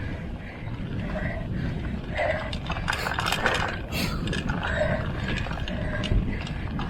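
Mountain bike ridden on a trail: irregular clicking and rattling from the bike's drivetrain over a steady low rumble of tyres and wind.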